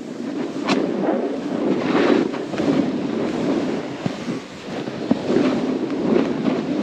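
Snowboard sliding and carving through powder snow, an uneven rushing noise that swells and fades, mixed with wind on the microphone from riding at speed.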